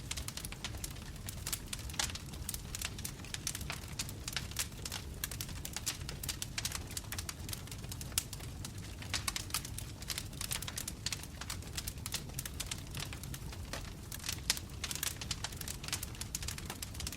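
Wood fire crackling and popping in a fireplace: dense, irregular sharp snaps over a steady low rumble of burning logs.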